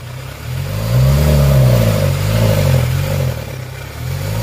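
Kia Sorento's D4CB four-cylinder diesel engine running and being revved over and over, its pitch rising and falling in quick blips. It now starts and runs after its no-start fault, a lost ground connection, was repaired.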